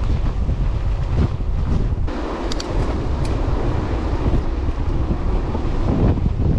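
Wind buffeting the microphone while a mountain bike rolls downhill along a trail, a steady low rumble. A few brief clicks come about two and a half to three and a half seconds in.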